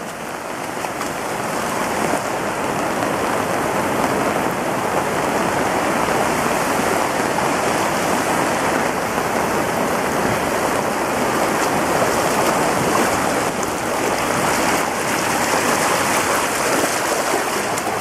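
Steady rush of floodwater, a continuous hiss of flowing water that builds over the first couple of seconds and then holds.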